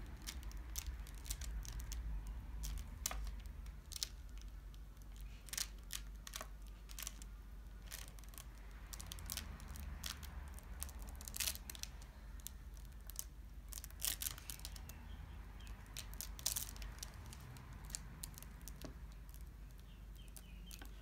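Honeycomb beeswax sheets being rolled by hand around a cotton wick: scattered soft crackles and ticks as fingers press and slide along the wax, over a low steady hum.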